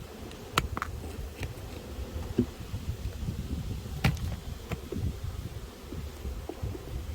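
Honeybees buzzing steadily around an opened hive, with a few sharp knocks or clicks, the loudest about half a second in and about four seconds in.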